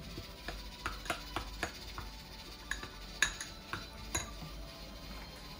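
Metal spoon stirring thick red seasoning paste in a small glass bowl: a string of irregular light clicks and scrapes against the bowl, the sharpest about three seconds in.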